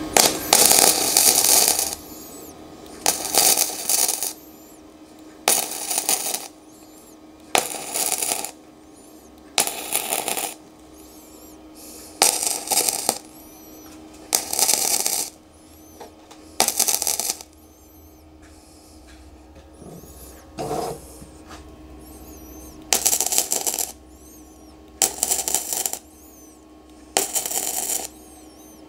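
Hitbox MIG 120 flux-core wire welder welding square steel tube: the arc crackles in about a dozen short bursts, each about a second long, with pauses of about a second between them.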